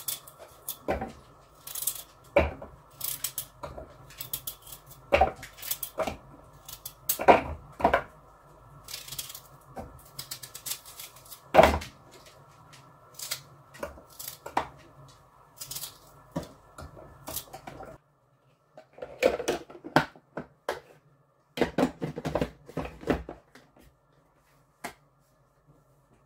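Irregular knocks, clicks and clatter, like objects being handled, over a steady background hum. The hum stops abruptly a little past two-thirds of the way through, and two short bursts of clatter follow.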